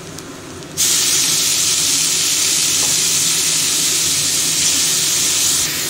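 Loud sizzling hiss as a heap of freshly washed, wet gima shak greens is dropped into hot mustard oil over fried potatoes in a steel wok. Only a faint frying sizzle at first; the sizzling starts suddenly about a second in, holds steady, and eases slightly near the end.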